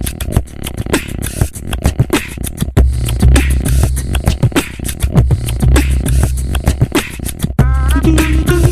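Beatboxing: fast vocal percussion of sharp clicks and snare-like hits over a low buzzing bass, with a wavering hummed tone coming in near the end.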